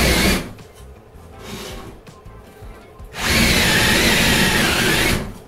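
Milwaukee M12BDD 12 V subcompact drill driver boring a 16 mm hole in wood, the motor running under load with a wavering whine. It stops about half a second in, then runs again for about two seconds from about three seconds in.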